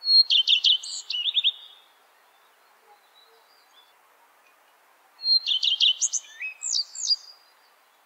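Common redstart singing two short song phrases about five seconds apart. Each phrase opens with a clear high note and runs into a quick string of twittering, falling notes, with faint hiss behind.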